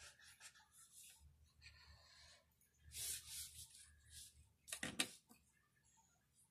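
Faint scratchy strokes of a washable felt-tip marker colouring on paper, with a louder stretch of strokes about three seconds in and a short sharp knock near the five-second mark.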